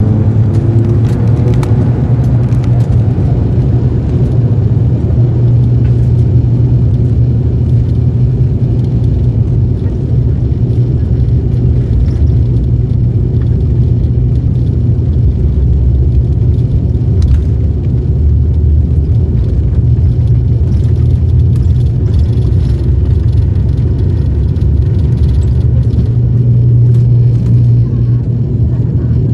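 Turboprop airliner's engines and propellers droning steadily, heard from inside the cabin as a loud, even low hum with rumble.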